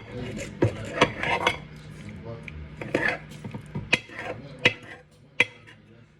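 Kitchen utensils and dishes clattering: an uneven run of clinks and knocks, with a few sharp ones standing out, thinning out near the end.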